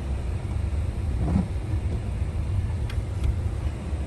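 Car running on the road, heard from inside the cabin: a steady low rumble of engine and tyre noise, with two faint clicks about three seconds in.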